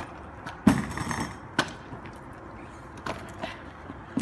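Stunt scooter wheels and deck knocking on concrete and a wooden board: one loud clack a little under a second in, then a few lighter knocks.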